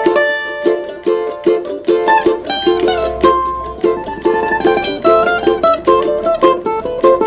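A small steel-strung plucked string instrument playing a samba tune, with rhythmic chord strokes and single melody notes picked between them.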